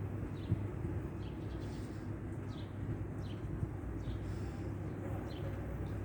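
Small birds chirping: short high chirps that drop in pitch, repeating every half second or so over a steady low rumble.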